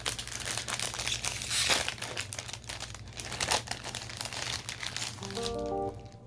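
Packaging of a Pokémon TCG First Partner Pack being torn open, with repeated crinkling and tearing. Near the end the crinkling stops and a few short plucked music notes begin.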